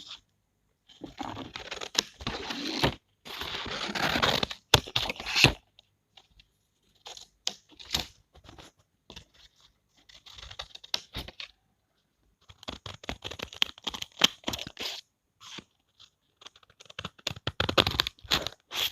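Scissors cutting paper: runs of rustling, snipping strokes lasting a second or two each, separated by short pauses with scattered small clicks.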